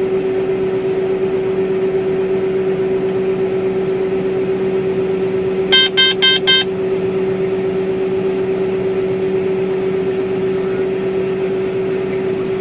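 Steady drone of a John Deere combine harvester heard from inside its cab as it unloads grain through its auger, with an even hum throughout. About six seconds in, four quick electronic beeps sound in under a second.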